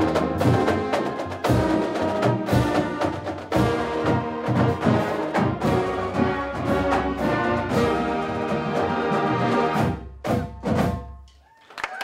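High school marching band playing loudly: bell-front marching brass over a drumline of snare and tenor drums, with sharp drum accents. It closes with two final accented hits about ten seconds in, then dies away.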